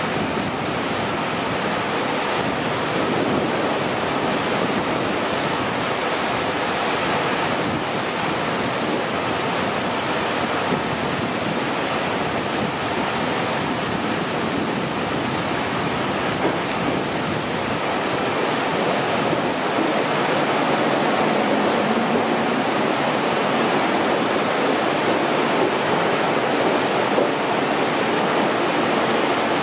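Heavy rain falling in a steady downpour, getting a little louder about two-thirds of the way through.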